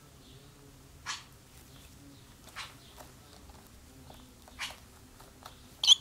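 Swallows at a nest with young and adults, giving short sharp chirps a second or two apart, the loudest near the end, over a faint steady low hum.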